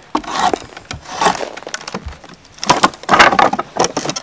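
A draw knife shaving green hardwood clamped in a shave horse: several separate scraping strokes as the billet is pared round.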